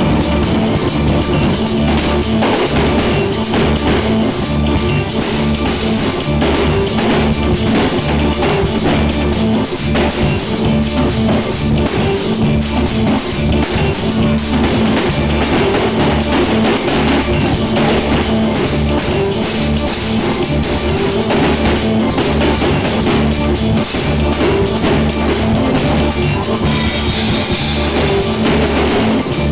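Drum kit played along with backing music, a loud, dense groove with a steady beat.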